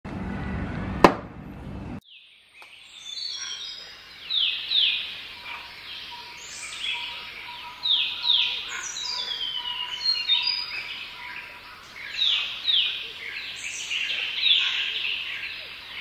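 Birds singing: a long run of quick, repeated chirping notes that sweep downward in pitch, over a faint steady tone. Before it, about two seconds of low outdoor rumble with one sharp, loud click about a second in, then an abrupt cut.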